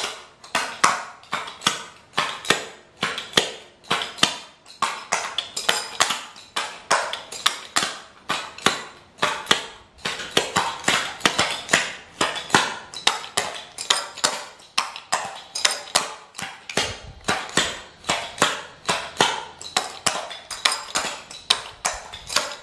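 Tap shoes' metal taps striking the floor, unaccompanied: a steady rhythm of crisp clicks, about two or three a second.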